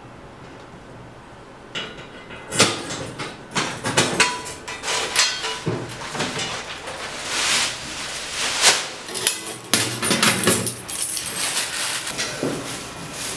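A bunch of keys jangling and a key working the lock of a small metal apartment mailbox, its door clicking open and being handled, with a run of sharp clicks, clanks and metal rattles starting about two seconds in.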